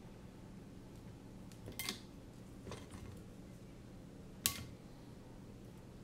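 A few sharp clicks and taps of small hand tools and parts being handled on a workbench, the loudest about four and a half seconds in, over a steady low hum.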